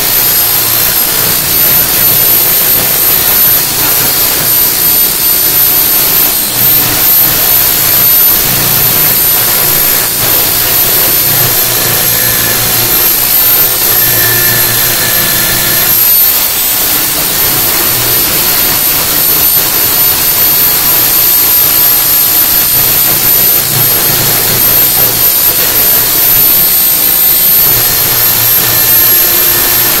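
Corded electric drill spinning a sanding disc against a truck door, grinding down cured two-part epoxy filler in old mirror-mount holes. A loud, steady motor whine with the hiss of the abrasive on the door.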